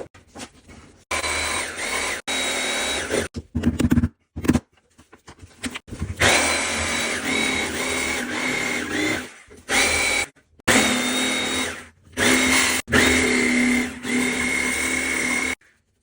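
Handheld power tool running in about five bursts of a few seconds each, its steady whine dipping in pitch now and then as it bears into the work, with short pauses and handling clatter between bursts.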